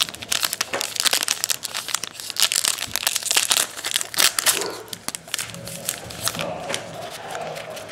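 Foil wrapper of a Topps Allen & Ginter baseball card pack crinkling and tearing as it is opened and the cards are slid out. The crackling is dense for the first five seconds, then thins out and gets quieter.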